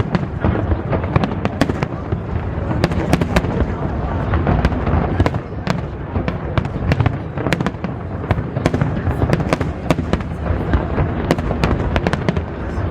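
Aerial fireworks display in full swing: a dense, unbroken run of sharp bangs and cracks, several a second, over a steady low rumble.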